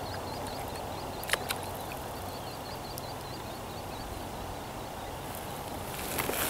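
A bird chattering in quick series of short, high chirps over a steady rushing background, with a couple of sharp knocks about a second and a half in.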